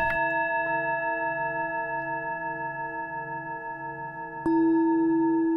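Singing bowl tones ringing and slowly dying away, with a slow pulsing waver. About four and a half seconds in, a fresh strike sets a lower tone ringing loudly.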